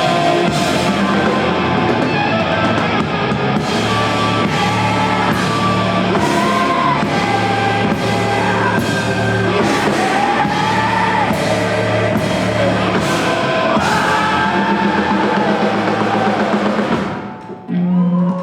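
Live rock band playing loud, with a drum kit keeping a steady beat of cymbal strokes over a pulsing bass line. The music breaks off near the end, and a last short hit closes the song.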